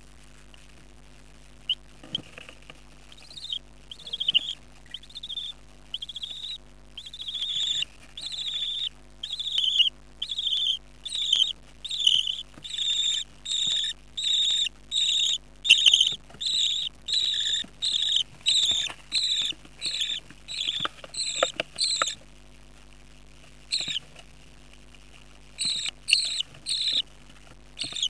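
Budgerigar chicks begging to be fed in the nest box: a steady series of short high cheeps, about two a second, starting about two seconds in, breaking off for a few seconds near the end and then starting again.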